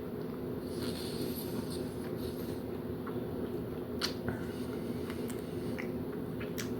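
A person chewing a bite of soft brownie, with a few faint mouth clicks, over a steady low room hum.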